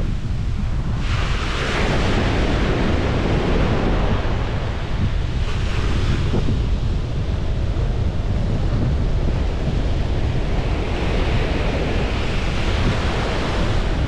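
Ocean waves breaking and washing up the shore, swelling three times, over a steady low rumble of wind buffeting the microphone.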